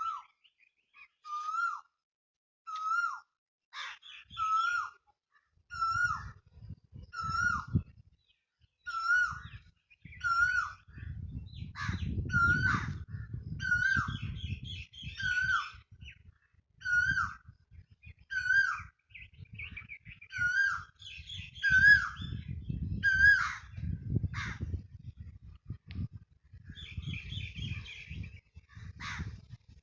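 A bird calling over and over, one short call with a quick rise and fall about every one and a half seconds, with fainter higher chirps from other birds between the calls.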